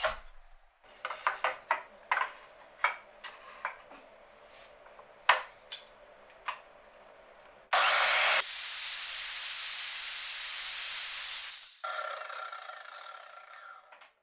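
A few sharp knocks of wood pieces being handled and set down, then a mitre saw starts with a sudden loud burst, runs steadily for a few seconds, and winds down with a falling whine near the end.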